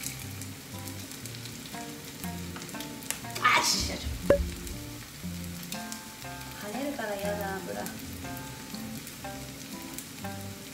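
Starch-coated bitter melon slices shallow-frying in oil in a frying pan, sizzling as they are turned with metal tongs. About three and a half seconds in the oil spatters loudly, and a sharp click follows just after.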